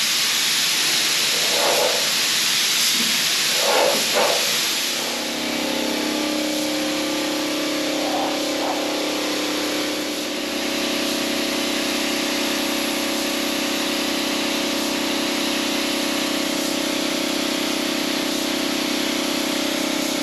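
Compressed-air paint spray gun hissing steadily as it lays a coat of paint. About five seconds in, a steady motor hum sets in beneath the hiss.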